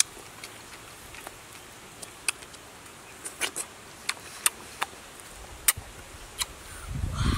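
Fingers peeling and breaking the skin of a small round fruit, giving a string of sharp, irregular clicks and ticks. A low rumble comes in near the end.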